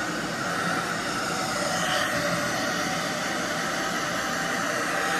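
Handheld hair dryer blowing continuously, a steady, even rushing hiss.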